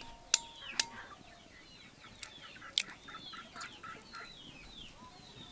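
Egg shells cracked against the rim of a steel bowl: several sharp taps, the loudest just after the start. Chickens keep calling throughout in a string of short, high, falling notes.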